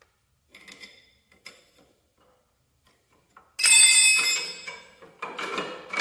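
Steel wrenches clinking against a hydraulic fitting and frame. About three and a half seconds in comes a loud metal clang that rings for about a second, followed by more clinks.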